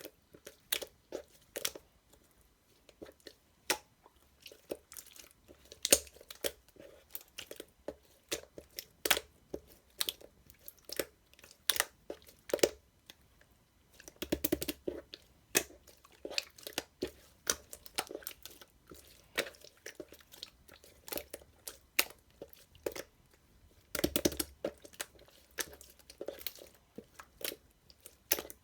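Crunchy chewing and biting: a run of sharp, irregular crunches, with two denser flurries about halfway through and near the end.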